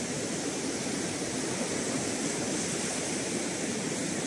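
Steady rush of breaking surf.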